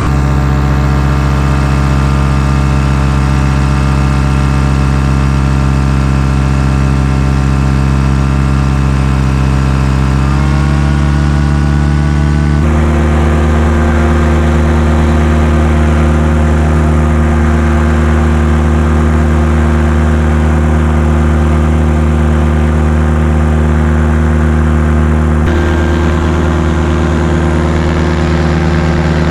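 Paramotor engine and propeller running loud and steady in flight, the pitch shifting in small steps about ten and thirteen seconds in and again near the end as the throttle changes.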